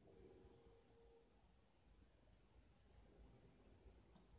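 Near silence: faint room tone with a steady, rapidly pulsing high-pitched trill and one faint click near the end.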